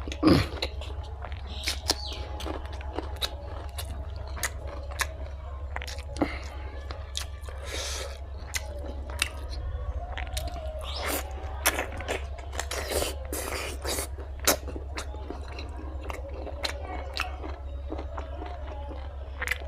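Close-up chewing and biting of fried pork and rice, with wet mouth clicks and the odd crunch coming irregularly several times a second. A steady low hum runs underneath.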